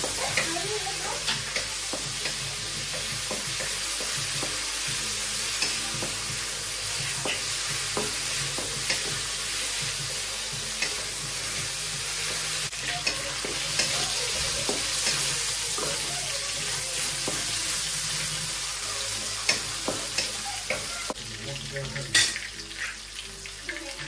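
Sliced meat sizzling in hot oil in an aluminium wok, stirred and scraped with a wooden spatula, which knocks against the pan in scattered clicks, with one sharper knock near the end.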